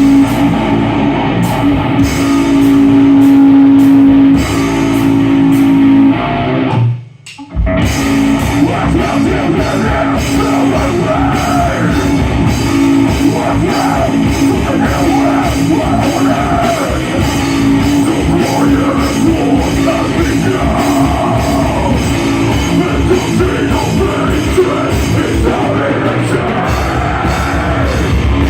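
Rock music with guitar, drums and singing. It cuts out for about half a second around seven seconds in, then carries on.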